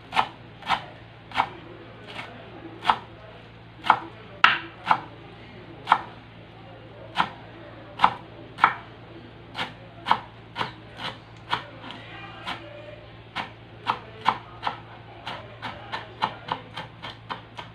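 Kitchen knife chopping fresh herbs on a wooden cutting board: a run of sharp knocks as the blade strikes the board, about two a second at first and quickening near the end.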